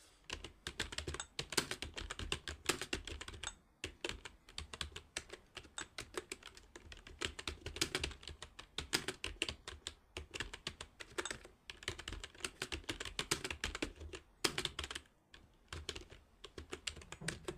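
Fast typing on a computer keyboard: a rapid run of key clicks, broken by short pauses three times.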